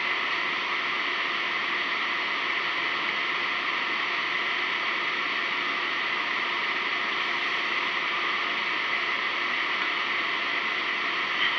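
Steady hiss-like noise with a faint hum underneath, unchanging throughout, with no distinct knocks, clatter or voices.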